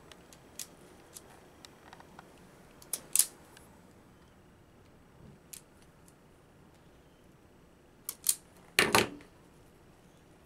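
Hand wire strippers working a short length of white wire, cutting and stripping its insulation. A few light clicks are followed by sharp snips about three seconds in, and two more near the end; the last snip is the loudest and longest.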